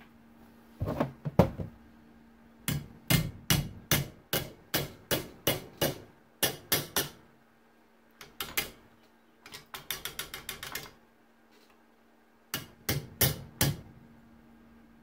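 Small hammer striking a curved piece of sheet metal clamped in a bench vise, shaping it: groups of sharp metallic blows, a quick flurry of lighter taps about ten seconds in, and four last blows near the end.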